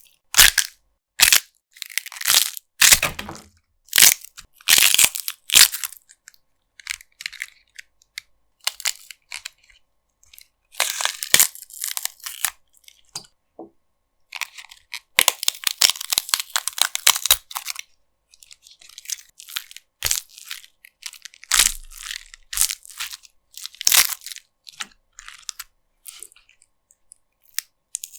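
Crisp celery and lettuce being snapped, twisted and crushed as bone-breaking foley. A run of sharp cracks comes about a second apart at first, then longer stretches of dense crunching and tearing, then more single snaps near the end.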